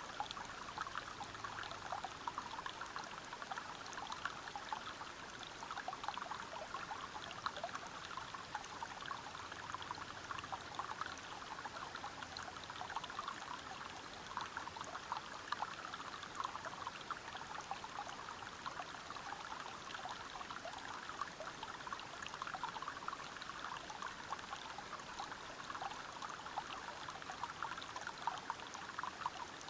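River water running over rocks: a steady, unbroken rush made of many small splashes.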